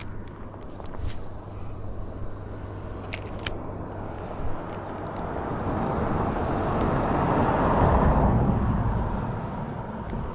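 A vehicle passing by: its noise swells to a peak about eight seconds in, then fades away.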